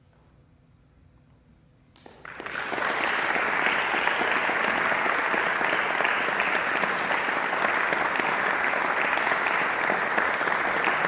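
About two seconds of hush, then an audience breaks into applause that builds within half a second and carries on steadily.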